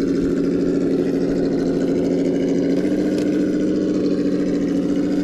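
Simulated engine rumble from an RC crawler's Sense Dual ESS sound kit, played through the truck's onboard speaker. It runs steadily, with its pitch rising slightly about three seconds in as the throttle is eased on.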